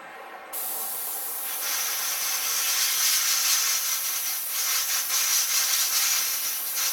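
Double-action airbrush spraying thinned paint: a steady hiss of air that starts about half a second in and gets louder about a second later.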